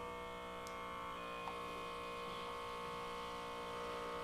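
Fizzics DraftPour beer dispenser running in its foam mode, tap pushed back to pour a thick, creamy head, giving a steady electric hum.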